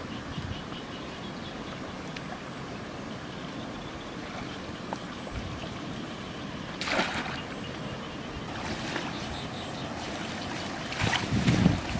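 Shallow stream water trickling steadily through a gap in a mud bank, with splashes about seven seconds in and again near the end as hands work in the water around a bamboo fish trap.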